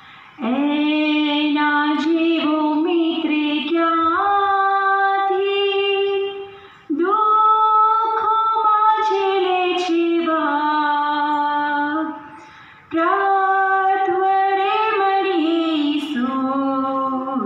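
A girl singing a prayer song solo and unaccompanied, in long held phrases with two short breaks for breath.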